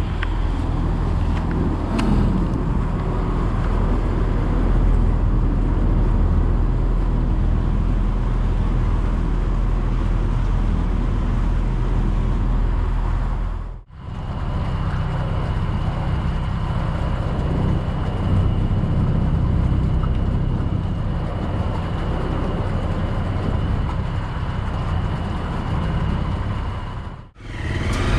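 A ferry's engine running steadily, a low drone, as the pontoon ferry crosses the reservoir. The sound drops out briefly twice.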